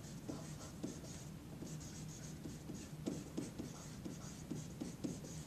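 Marker pen writing on paper: a run of short, faint scratching strokes as words are handwritten.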